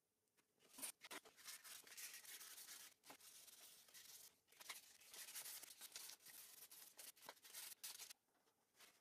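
Hand sanding of an aluminium pendant on fine 1200-grit sandpaper: a scratchy rubbing in repeated strokes with brief pauses, starting about a second in and stopping shortly before the end. This fine-grit sanding is a finishing stage that smooths the metal face.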